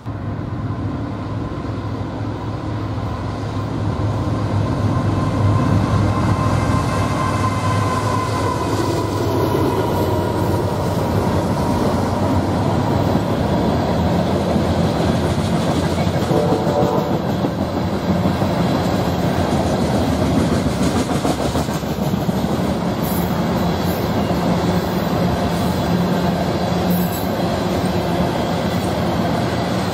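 CSX freight train of loaded tank cars rolling past close by, with a steady rumble and clatter of wheels over the rails that grows louder in the first few seconds.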